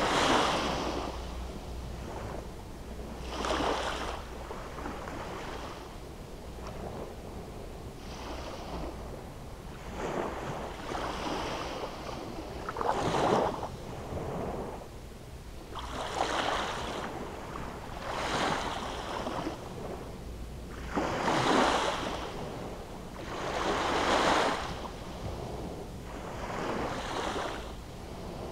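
Small sea waves breaking and washing up a sand beach, one surge every two to three seconds.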